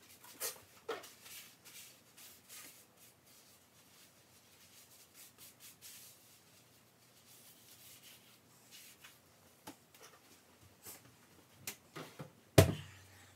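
Light rubbing and wiping on a kitchen surface, with scattered small clicks and knocks and one sharp, loud knock near the end.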